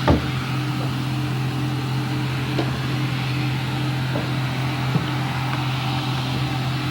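A steady low mechanical hum, with a sharp knock right at the start and a small click about five seconds in.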